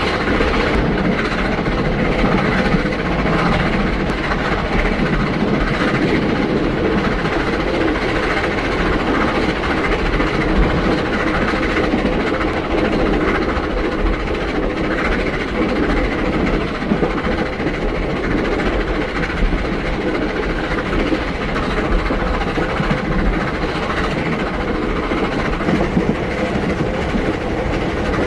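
Steam locomotive running steadily at fast speed, its rapid exhaust chuffs blending into an even, continuous rush, with no whistle.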